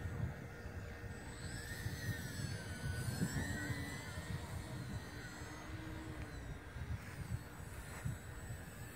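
Radio-controlled biplane's motor and propeller whining faintly, the pitch wavering up and down, under a low rumbling noise.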